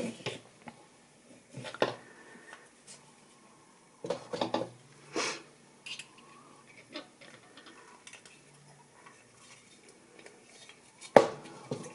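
Metal jewelry pliers clicking and clinking against heavy wire as it is bent into loops on driftwood: scattered light clicks, with a sharper knock about a second before the end.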